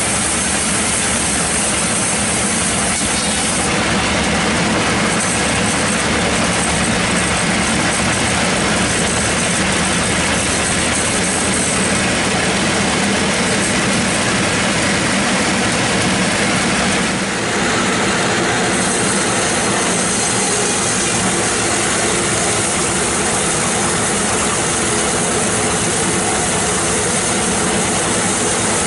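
Band sawmill running and cutting lengthwise through a bayur log: a loud, steady mechanical noise over a continuous hum, with a brief dip about seventeen seconds in.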